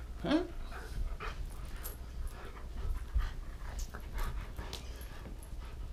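Dog tugging hard on a toy in play: one short rising vocal sound from the dog near the start, then scattered scuffs and clicks of the struggle.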